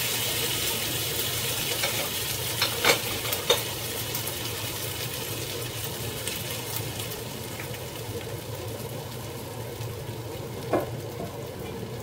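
Julienned potatoes and onions sizzling in oil in a nonstick frying pan: a steady hiss that slowly fades, with a few sharp clicks about three seconds in and one more near the end.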